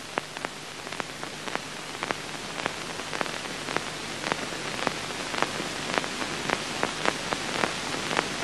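Steady hiss with scattered sharp clicks and pops, about two or three a second and irregular: the surface noise of an old optical film soundtrack.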